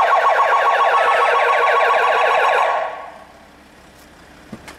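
Police car's electronic siren sounding a rapid warbling tone, many sweeps a second, that stops about three seconds in.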